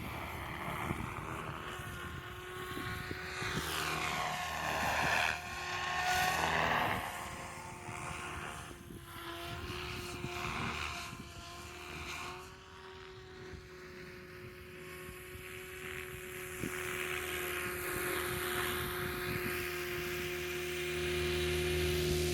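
Helicopter flying, its steady rotor and engine tone sweeping up and down as it passes back and forth, with wind buffeting the microphone.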